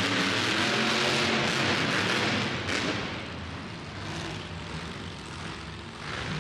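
Monster truck engine running hard under full throttle, then easing off about three seconds in and running on more quietly.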